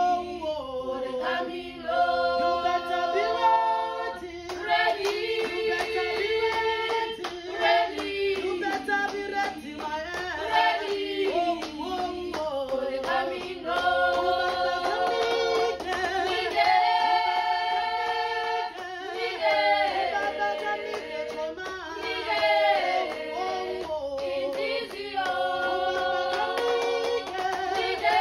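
A small group of women and girls singing a cappella in harmony, in held, gliding phrases, with hand clapping in the later part of the song.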